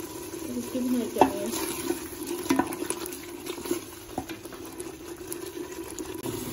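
A spoon stirring thick, wet masala paste in a metal pot, with scattered scrapes and light knocks against the pot starting about a second in, over a steady low hum.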